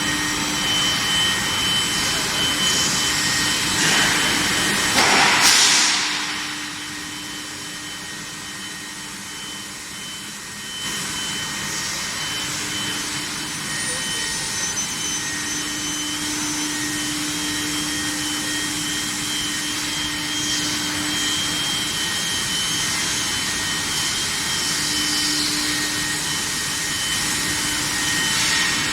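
Industrial machinery at an electric heat-treatment furnace running with a steady rushing noise and a hum that comes and goes. A loud rushing burst about five seconds in is followed by a few seconds of quieter running before the noise picks up again.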